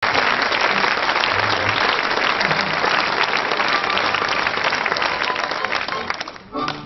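Audience applauding steadily, fading out near the end as the ensemble's first musical notes come in.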